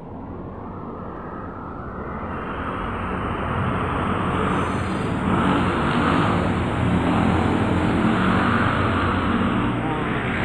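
Road traffic on the street outside: a vehicle passing, its noise building over several seconds, strongest in the middle and easing slightly near the end.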